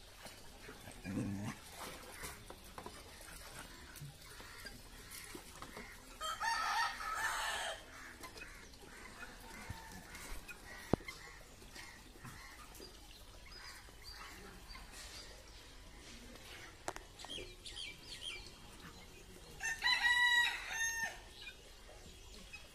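A rooster crowing twice, one long call about six seconds in and another near the end.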